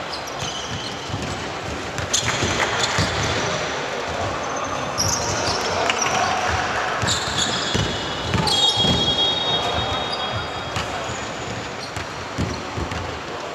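Basketball game play: the ball bouncing repeatedly on the court, with players' voices and short high-pitched squeaks.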